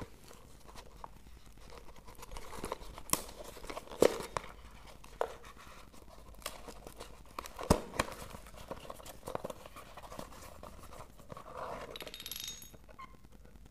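Hands opening and handling a small cardboard box that holds a broken hourglass: scattered knocks, clicks and scraping, with a few sharp knocks around the middle and a crinkling rustle near the end.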